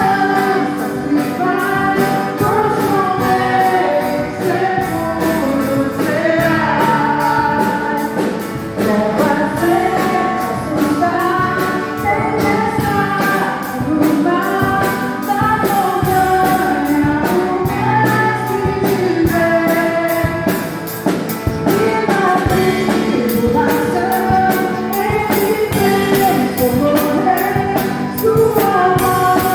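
A gospel praise group singing a Portuguese hymn with band accompaniment, over a steady, quick percussion beat.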